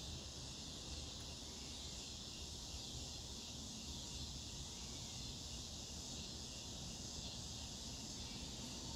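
Scissor grinder cicadas (Neotibicen pruinosus, the dog day cicada) calling: a steady, high-pitched buzz that holds without a break.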